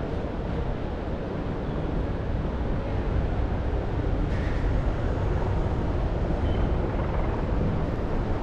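Steady low rumble of outdoor city ambience, with wind on the microphone.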